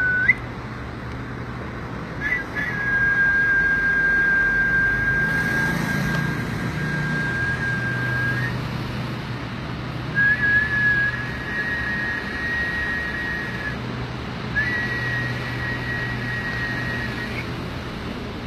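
A person whistling three long, steady held notes, the first about six seconds long and the later two shorter and slightly higher, each with a brief upward flick at its start or end. The whistling is the healing sound the patient is told to listen to while holding his breath, and it plays over a low steady hum.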